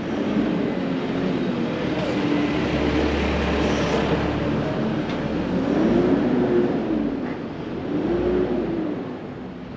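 Motor traffic passing close by, engine tones rising and falling as several vehicles go past, loudest about three, six and eight seconds in.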